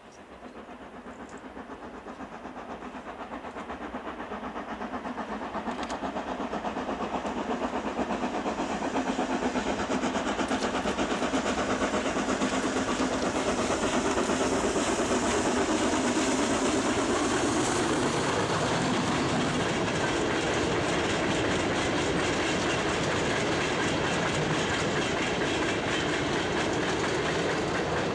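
Steam locomotive hauling a freight train of mineral wagons, growing steadily louder as it approaches and passes at close range with a rapid beat of exhaust and wheel noise. After it goes by, the lower rumble and clatter of the wagons rolling past carries on.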